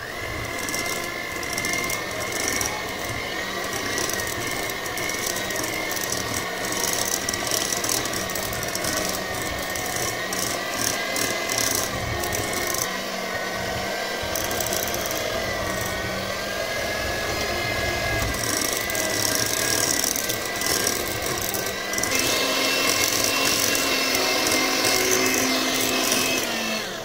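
Moulinex electric hand mixer running, its twin beaters whipping cream cheese frosting in a glass bowl: a steady motor whine that wavers slightly, shifting pitch near the end.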